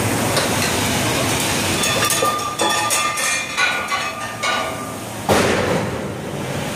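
Metal striking metal on a steel jacking rig: a run of ringing clinks between about two and four and a half seconds in, then one loud metal knock about five seconds in, over a steady background din.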